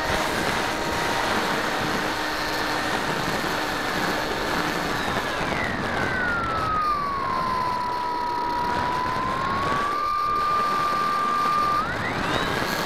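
Onboard sound of a Bixler 2 electric RC plane in flight: air rushing over the camera with the whine of its electric motor and propeller. The whine falls in pitch about five seconds in as the throttle is eased back, holds low, then rises sharply near the end as the throttle opens again.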